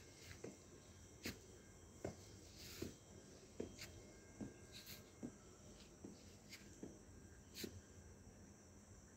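Faint footsteps on grass and ground at a steady walking pace, about one step a second, over a steady faint high chirring of night insects.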